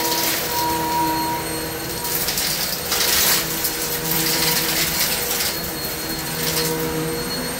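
Kenmore upright vacuum running with a steady motor whine. It sucks up wood chips from carpet, with surges of crackling rattle as the chips are pulled in, the loudest about three seconds in.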